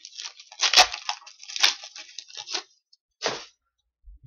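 Wrapper of a hockey card pack being torn open and crinkled by hand: a quick series of short crackly rips, then one last crinkle a little past three seconds in.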